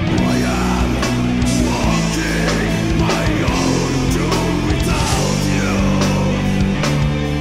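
Death/doom metal music: guitars and bass hold slow, sustained low chords while a lead melody slides up and down above them.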